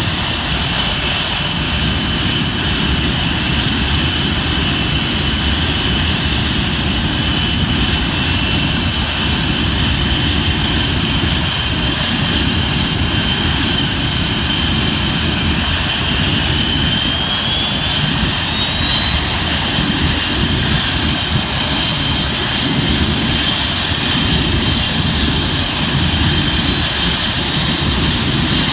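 Panavia Tornado GR4's Turbo-Union RB199 turbofan engines running on the ground: a loud steady jet rumble with a high whine. In the latter half a second whine rises steadily in pitch as the engine speed increases.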